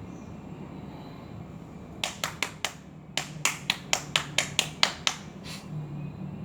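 About fourteen sharp hand slaps in quick succession, roughly four a second with a short break after the first four. They start about two seconds in and stop after about three and a half seconds.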